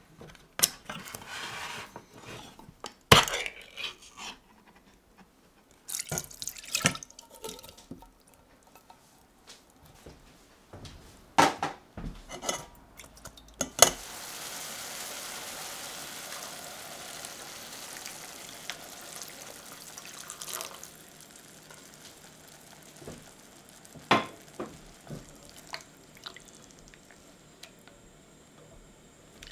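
A tin can of pineapple slices being opened and handled, with sharp metal clicks and knocks. About fourteen seconds in, pineapple juice runs steadily for several seconds as the slices drain in a metal sieve, followed by a few quieter knocks of kitchen utensils.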